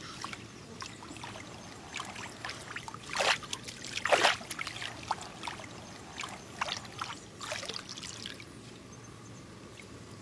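Water trickling and splashing in irregular bursts, with two louder splashes about three and four seconds in.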